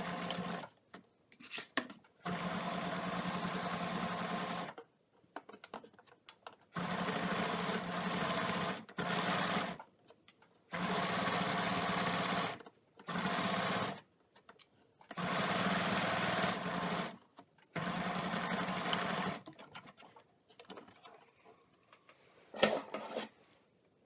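Pfaff sewing machine stitching a collar neckline seam in about eight short runs with quiet pauses between them, then a single sharp click near the end.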